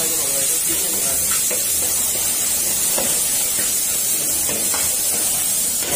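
Goat meat stir-frying in a hot steel wok: a steady, loud sizzling hiss, with a metal spatula scraping and turning the meat now and then.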